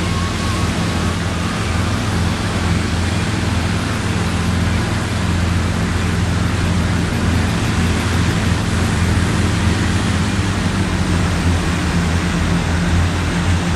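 Strong wind buffeting the microphone in heavy rain: a steady, loud rushing noise with a heavy low rumble.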